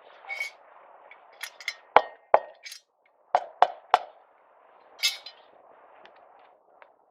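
A series of sharp knocks and clinks of hard objects striking, about a dozen in all, loudest about two seconds in and in a quick run of three near the middle, over a faint steady hiss.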